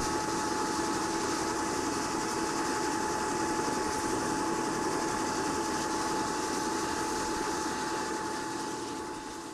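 Helicopter running on the ground: a steady engine whine over a rushing noise, fading out near the end.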